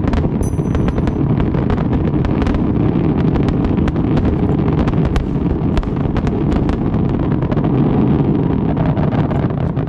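Fireworks barrage: dense rapid bangs and crackles merging into a continuous rumble, which drops off suddenly near the end.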